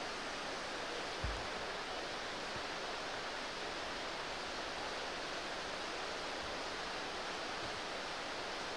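Waterfall rushing, a steady even hiss of falling water, with one brief low thump about a second in.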